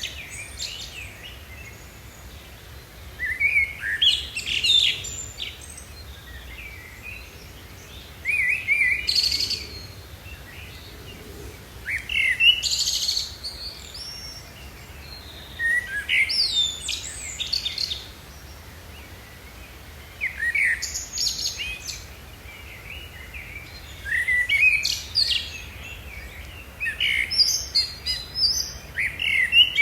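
A songbird singing short, varied phrases of whistled and chirped notes, one phrase about every four seconds, with pauses between them.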